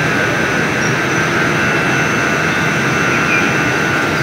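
Belt conveyor running: a loud, steady machine noise with a few thin high whine tones held over it.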